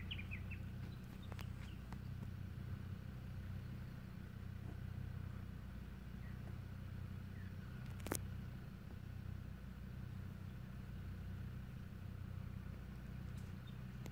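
Land Rover Defender 90's engine idling steadily, heard from a distance, with one sharp click about eight seconds in. A few bird chirps come right at the start.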